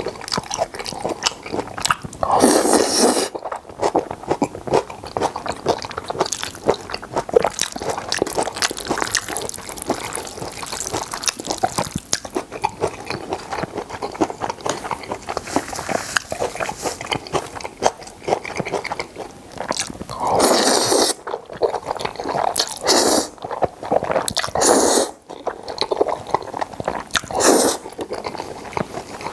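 Close-miked wet chewing of jajangmyeon noodles in black bean sauce with seafood, a dense run of small sticky clicks. Louder noodle slurps of about a second each come around three seconds in and several times in the last third.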